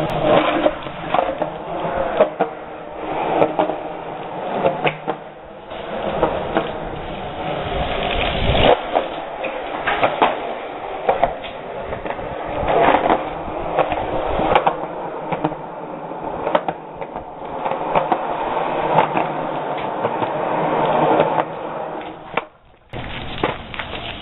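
BMX bike rolling on concrete pavement, with a steady rolling noise and many sharp clicks and knocks. The sound drops out briefly near the end.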